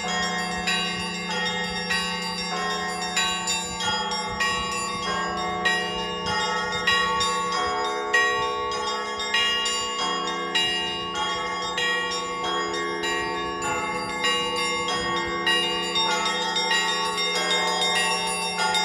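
Russian Orthodox church bells rung by a bell ringer: smaller bells struck in a quick, rhythmic pattern of several strikes a second over the sustained hum of a larger low bell, which is struck again about halfway through.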